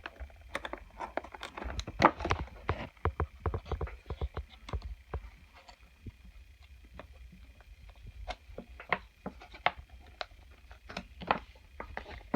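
Irregular light clicks, taps and crinkles of small plastic toys and their packaging being handled, with a faint steady high tone underneath.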